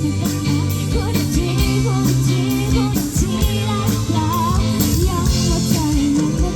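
A live band playing a pop song: drum kit, bass and guitar under a wavering melody line.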